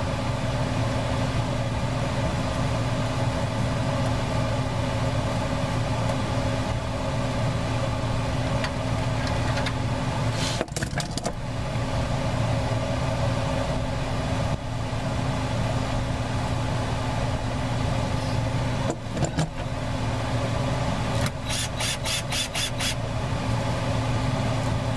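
Portable fan running with a steady hum. A few sharp clicks of hand tools on metal come about halfway through, and a quick run of about six ticks near the end.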